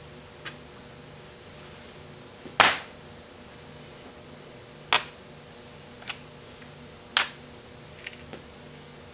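Three sharp knocks about two and a half seconds apart, with a few lighter taps in between, from tools striking parts of a Chrysler 727 transmission valve body during disassembly at the kickdown lever and shaft.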